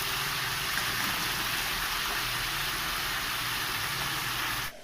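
Spice paste with onion frying in hot oil in a pan, a steady sizzle as the masala is fried down; the sizzle cuts off suddenly near the end.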